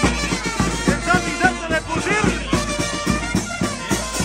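A banda de pueblo, an Andean village brass band, playing: trumpets and saxophones over a steady beat of bass drum, snare drum and crashing hand cymbals.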